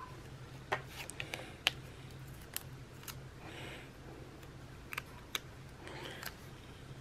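Small sharp clicks and taps with soft paper rustles as sticker sheets and planner pages are handled, over a low steady hum.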